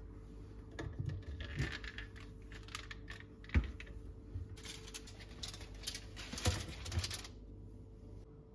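Plastic bottles of cleaning products being picked up and set down on a plastic shelf and tray: a string of light clicks and knocks, with sharper knocks about three and a half and six and a half seconds in. A faint steady hum runs underneath.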